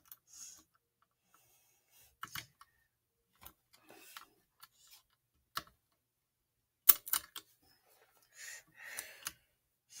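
Small metal clicks and taps of a lock-picking tension wrench being handled and pushed against the keyway of a padlock held in a vise, scattered and irregular, the sharpest click about seven seconds in. A few soft rustles come near the end.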